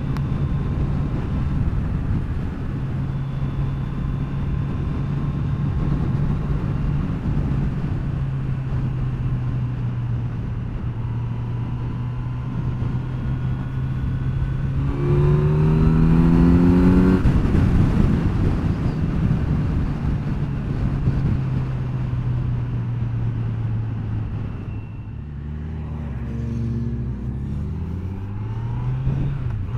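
Kawasaki Z900's inline-four engine running at a steady cruise under heavy wind rush. About halfway through the revs climb quickly as the bike accelerates hard. Near the end the engine note drops as the bike slows, then climbs again.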